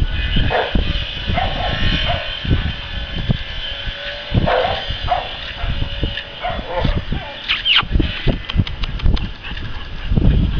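Puppies giving short, high whining yelps, several brief calls a second or more apart, over frequent low thumps, with a quick run of clicks about eight seconds in.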